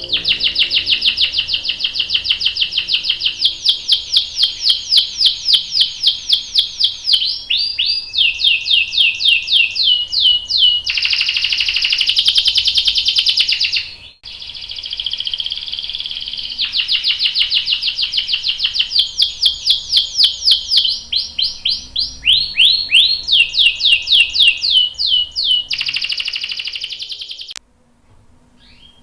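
Domestic canary singing long rolling trills: fast runs of repeated high notes, phrase after phrase, each at a new pitch. The song breaks off briefly a little before halfway and stops shortly before the end.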